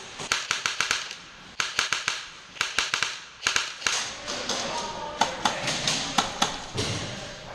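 Airsoft guns firing in several short rapid strings of sharp snapping shots, with brief pauses between the strings.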